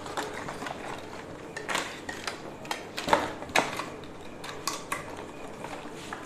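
Clear plastic packaging crinkling while hard plastic air horn trumpets and fittings clack together as the kit is unpacked by hand, in irregular sharp clicks and rustles, the loudest about three seconds in.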